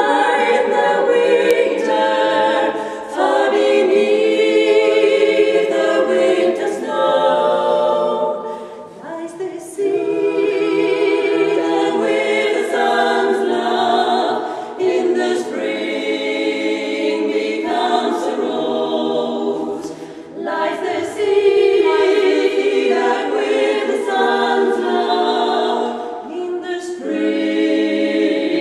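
Women's four-voice a cappella group singing in close harmony, phrase after phrase, with brief breaks between phrases.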